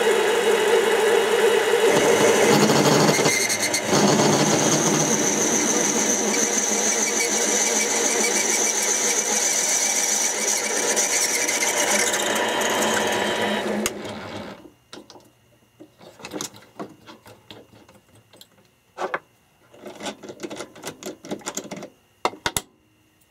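Mini lathe running while a 15/64-inch drill bit fed from the tailstock bores out a part held in the three-jaw chuck: a steady machine sound, with a high whine joining partway through. The lathe stops about 14 seconds in, and scattered metallic clicks and rattles follow as hands work at the chuck.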